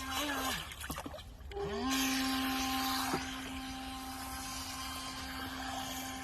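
The small electric motor of a toy RC jet boat whining steadily. About half a second in its pitch falls away and it stops for about a second, then it spins back up with a rising whine near the two-second mark and runs steady again.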